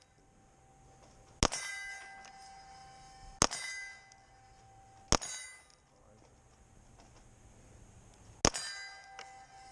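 Pistol rounds hitting steel plates: four sharp strikes, each followed by a metallic ringing that dies away within about a second, with a longer pause before the last hit.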